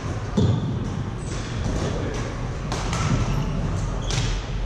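Badminton rackets striking a shuttlecock in several sharp cracks, one about four seconds in as a player jumps to hit, with a heavy thud near the start, over a steady low hum in a large hall.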